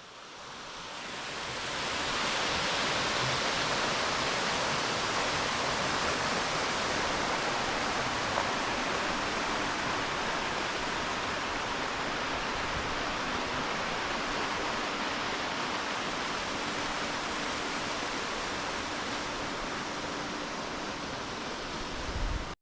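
Rushing creek water: a steady, even hiss that fades in over the first two seconds and holds level.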